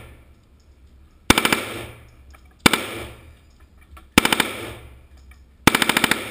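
Heckler & Koch MP5 submachine gun fired on full auto in short bursts of a few rounds each. Four bursts come about a second and a half apart, each followed by a ringing echo.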